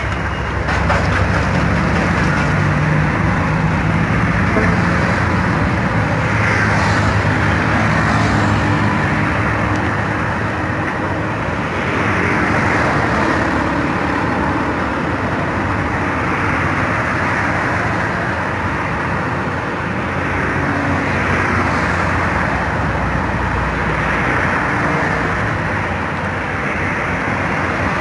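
Car driving on an unpaved dirt road, heard from inside the cabin: the engine running and steady road noise from the tyres on the dirt surface, the level swelling and easing a little as it goes.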